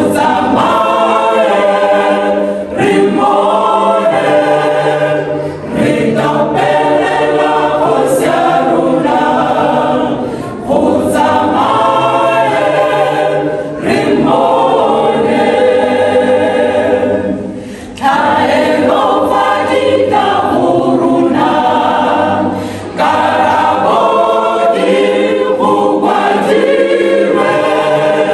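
Mixed choir of men's and women's voices singing an unaccompanied gospel song in long phrases, with brief breaks between phrases every few seconds.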